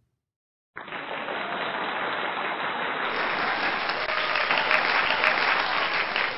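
Crowd applause, a steady wash of many hands clapping that starts suddenly about a second in after a moment of silence; its abrupt start in an audience-free video points to an added applause sound effect.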